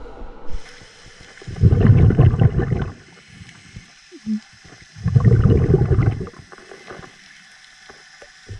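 Scuba diver's exhaled bubbles from the regulator, heard underwater: two rumbling, gurgling bursts of bubbles, each about a second long and about three and a half seconds apart, with faint clicks in between.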